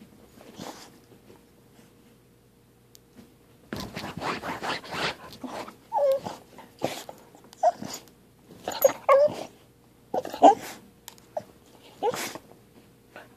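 Corgi snuffling and nosing at the bedcover up close as it chases a laser dot. A noisy rustling stretch about four seconds in is followed by about five short whimpers.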